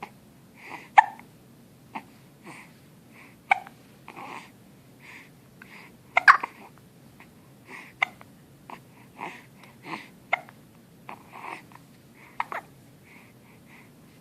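Repeated hiccups: about seven sharp hiccups, irregularly spaced one to three seconds apart, with softer short sounds between them.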